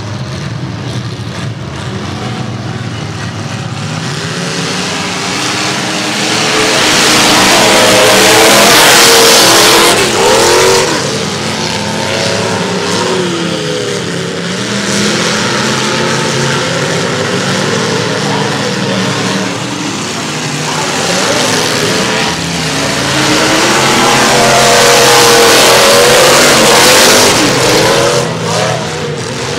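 Several full-size demolition derby cars' engines running and revving together, their pitch rising and falling constantly. There are two louder spells of hard revving, about a quarter of the way in and again near the end.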